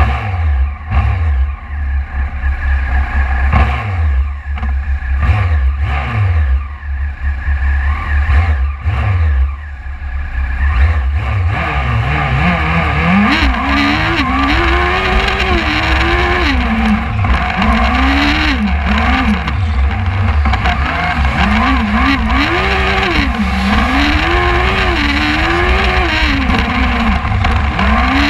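Superlite single-seat race car engine, heard from its cockpit. A few short throttle blips come first, then from about twelve seconds in the revs rise and fall again and again as the car is driven hard.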